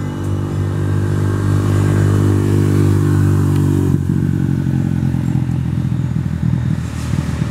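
Central Romana diesel locomotive engine running steadily, a loud low hum at a fixed pitch. About four seconds in it gives way to a rougher, rattling small engine, a motorcycle passing close by.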